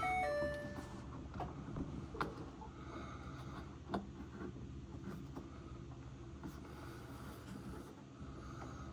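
Faint rubbing and a few light clicks as a rubber drive belt is worked back and forth by hand onto the motor and transmission pulleys under a belt-driven Maytag washer. A short metallic ring sounds right at the start.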